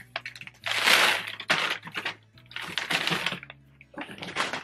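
Gift wrapping paper crinkling and tearing in several short bursts as a present is unwrapped.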